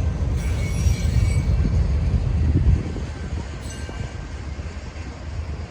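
Train rolling past on the track with a heavy low rumble, and faint high wheel squeal in the first second or so. The rumble drops off about three seconds in.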